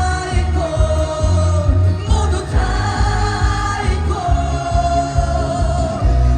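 Korean trot song played loud through the stage sound system, with a pounding bass beat under a long held, gently bending melody line.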